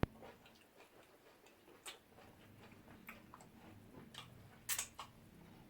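Eating close to the microphone, fufu with ogbono soup: scattered short wet clicks and smacks of chewing, with a sharper click right at the start and a louder pair near the end.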